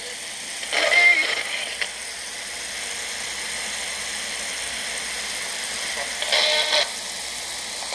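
Steady hiss broken twice by a short, high-pitched voice-like sound: once about a second in and again near the end.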